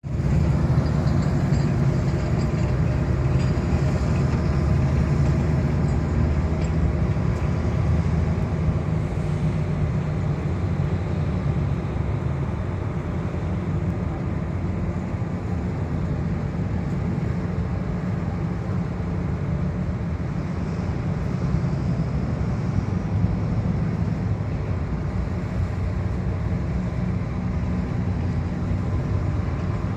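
Ship engines running with a steady low rumble.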